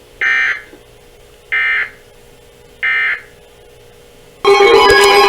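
Three short, harsh bursts of EAS digital data tones from NOAA Weather Radio, about a second apart: the end-of-message code that closes a flash flood warning. At about four and a half seconds loud guitar music starts.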